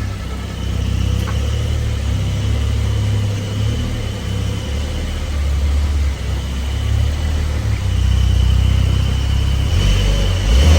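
Car engine running with a low, uneven rumble.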